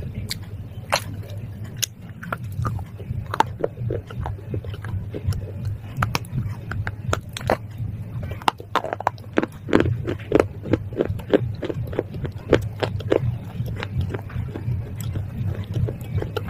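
Close-up crunching and crackling as someone bites and chews brittle pieces of clay pot: many sharp crunches, thickest around the middle of the stretch, over a steady low hum.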